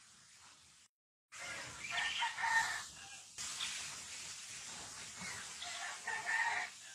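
A rooster crowing twice, each call about a second long, over a steady hiss; the sound cuts out briefly about a second in, before the first call.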